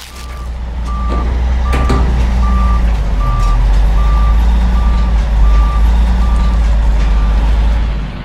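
Reversing alarm of a large truck beeping at an even pace, about one and a half beeps a second, over a loud, deep engine rumble. The beeps stop shortly before the end and the rumble cuts off suddenly.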